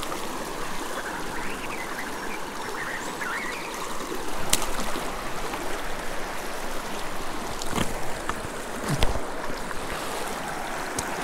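Small mountain creek flowing steadily over a riffle, an even rush of running water, with three brief clicks in the second half.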